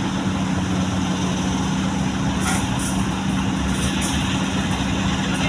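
Komatsu excavator's diesel engine running steadily with a low hum, with a few short high clicks about halfway through and near the end.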